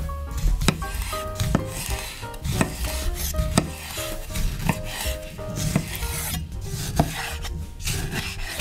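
Chef's knife slicing tomatoes on a bamboo cutting board, the blade cutting through and knocking on the board about once a second.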